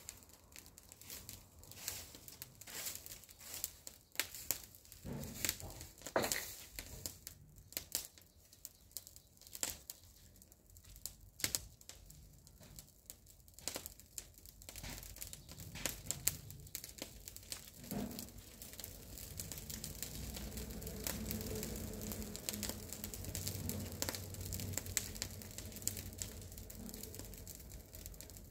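Pile of dry brush and branches burning, crackling with many sharp, irregular pops; from about two-thirds of the way in the crackle gives way to a denser, steadier rush.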